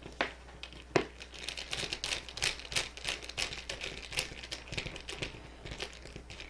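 Small screwdriver tightening the screw terminal of a solderless barrel connector to clamp the stripped wire: a run of irregular small clicks and scrapes, with a sharper click about a second in.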